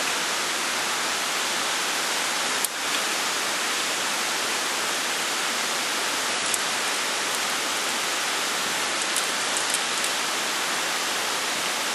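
Steady, even rushing hiss, with one sharp click nearly three seconds in and a few faint ticks a little before the end.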